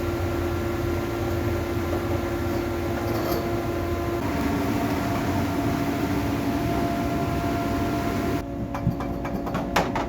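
A woodworking power machine running steadily with a hum. The hum drops in pitch about four seconds in, the hiss thins near the end, and a few clicks follow.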